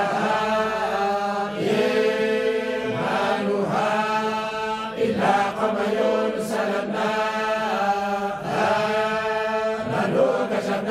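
A group of men chanting the Quran together in unison in the Moroccan collective style, Warsh reading. The chant moves in long, drawn-out melodic phrases with brief breaks between them.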